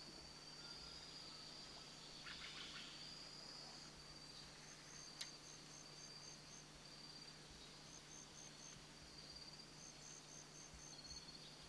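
Faint insect chorus from the rainforest: a steady high trill, joined from about four seconds in by groups of short, evenly spaced high chirps.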